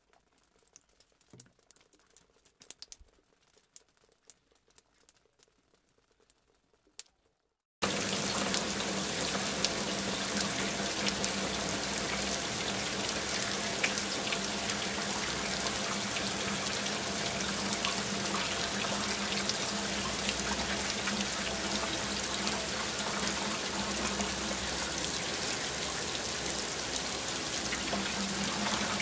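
Faint scattered clicks. About eight seconds in, a sudden switch to heavy rain pouring down steadily, with a steady low hum beneath it.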